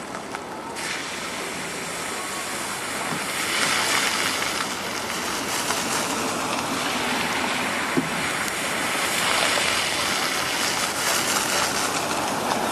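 Floodwater rushing in a steady, loud hiss during a flash flood. It swells about a second in and grows louder from about three and a half seconds, with a short tick about eight seconds in.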